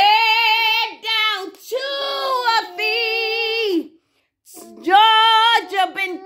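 A high voice singing long held notes, several in a row with short breaks between them, and a brief silence about four seconds in.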